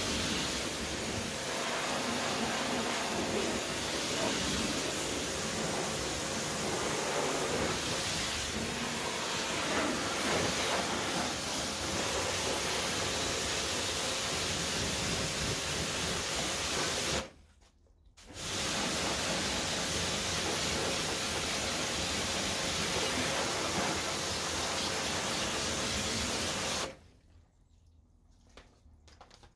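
Pressure washer spraying water in a steady hiss, rinsing all-purpose cleaner off an engine bay at light pressure. The spray cuts out for about a second partway through, runs again, then stops shortly before the end.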